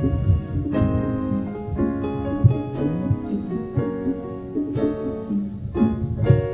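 Keyboard piano playing the instrumental introduction to a worship song, chords struck every half second to a second over a low bass line.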